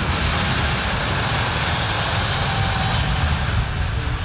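Boeing 787-9 Dreamliner's twin turbofan engines at takeoff thrust during the takeoff roll: a loud, steady jet rush that is strongest in the middle and eases slightly near the end.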